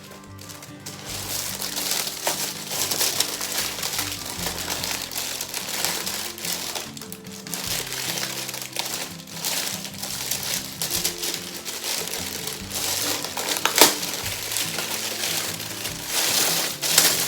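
Packaging crinkling and rustling as a ring light parcel is unwrapped by hand, with sharper crackles about 14 seconds in and near the end. Background music plays underneath.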